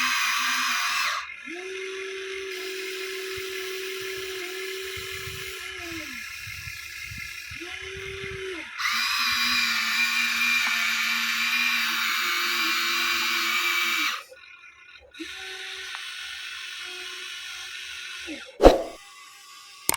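Small electric gear motors of a Huina 1593 remote-control toy excavator whining as different functions are worked. The pitch switches between a loud high whine and lower, quieter hums as motors start and stop, with a sharp knock near the end.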